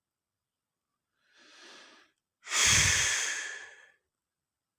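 A person breathes in softly, then lets out one long, heavy, loud sigh that fades away.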